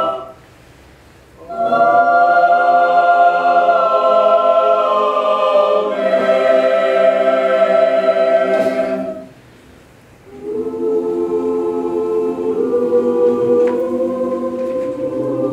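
Mixed choir of men's and women's voices singing sustained chords unaccompanied. The chords stop twice, each time for a rest of about a second, one soon after the start and one about two-thirds of the way through.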